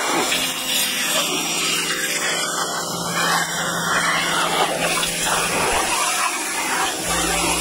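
A machine running with a steady, loud rushing noise; a low hum joins in near the end.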